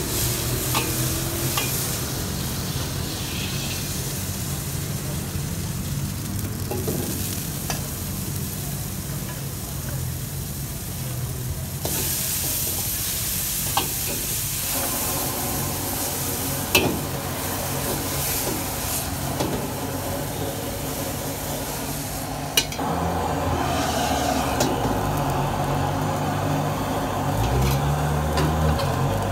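Food sizzling in a hot wok while a metal ladle stirs and scrapes it, with a few sharp clacks of the ladle against the wok and a steady low rumble underneath. The sizzle grows louder near the end.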